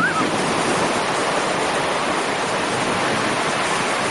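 Sea surf washing, a steady hiss of breaking water.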